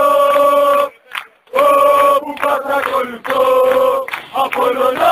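Crowd of football supporters singing a Greek terrace chant together in unison. The singing breaks off briefly about a second in, then resumes.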